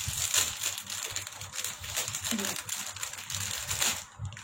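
Plastic packaging of a squishy toy crinkling and rustling as it is torn open by hand.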